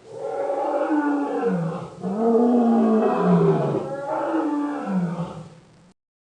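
Creature sound effect of a Thylacoleo (marsupial lion) roaring: three long, deep roars one after another, each falling in pitch, stopping suddenly near the end.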